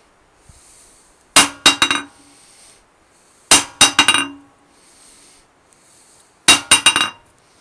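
Hammer striking the face of a 55-lb Harbor Freight anvil three times, each blow bouncing off in a quick run of three or four ringing strikes that come faster and weaker, a sign of the anvil's fairly decent rebound.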